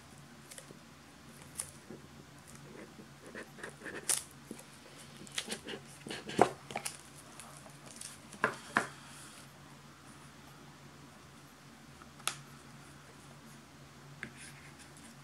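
Hands unwrapping and opening a small cardboard box: plastic film crinkling, then the lid and inner tray handled, in scattered light clicks and taps. The sharpest clicks come a little past the middle.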